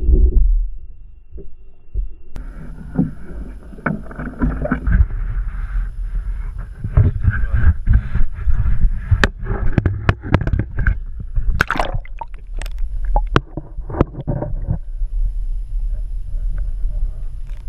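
Lake water splashing and sloshing against a handheld action camera as it is dipped to the surface and under it, with many sharp knocks and crackles. After about fifteen seconds it settles into a steady, muffled underwater rumble.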